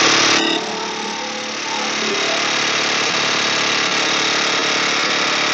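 Large cordless impact wrench hammering steadily on a big 1-13/16 in. socket, failing to break loose a tight nut on a hydraulic cylinder's end.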